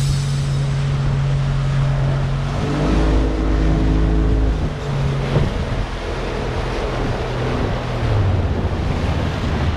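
Motorboat engine running under way, with water rushing past and wind on the microphone. About three seconds in the engine note shifts and a deeper rumble swells for a second or two, then settles to a steady run again.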